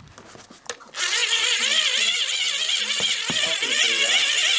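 A portable radio switched on, giving a click and then, about a second in, a sudden loud hiss of static with warbling whistle tones running through it.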